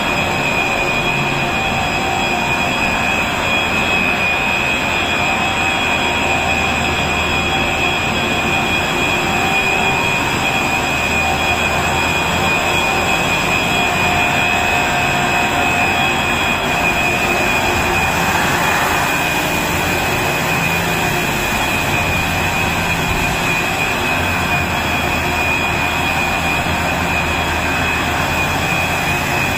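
Cast stretch film production line running: steady, loud machinery noise from its motors and drives, with constant high-pitched whines over it.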